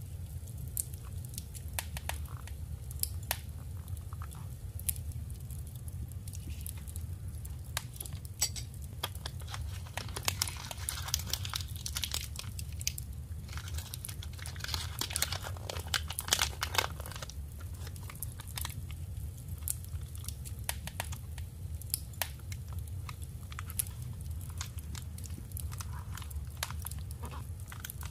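Paper being handled close to the microphone: scattered crinkles, taps and clicks, with longer stretches of crinkling and rustling near the middle, over a steady low hum.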